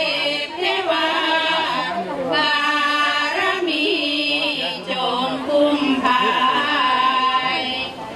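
A sarabhanya group, mostly women's voices, singing a Thai Buddhist devotional chant in unison. They hold long notes that glide between pitches, with brief breaks between phrases.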